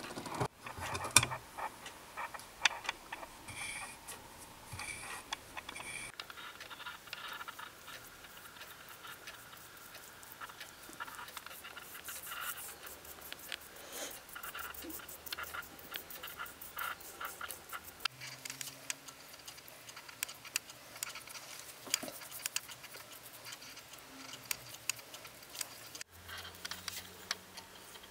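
Faint, irregular clicks and taps of a paintbrush applying wood varnish, dabbed in the varnish can and stroked along a wooden knife handle.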